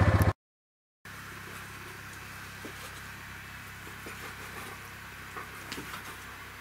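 A vehicle engine running cuts off abruptly at an edit. After a moment of dead silence comes a steady low hum with faint hiss and a few small taps and knocks.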